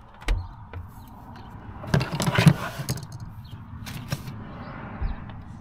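Hard plastic engine-bay parts knocking and scraping as they are handled by hand: a few sharp clicks, with a louder rattling scrape about two seconds in and a dull knock near the end.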